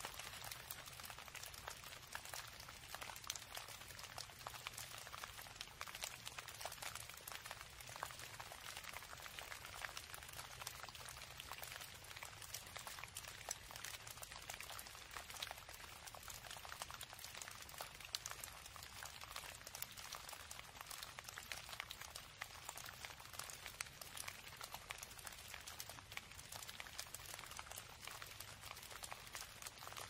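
Faint, steady crackling hiss with a low hum underneath: outdoor ambience picked up through a home security camera's microphone.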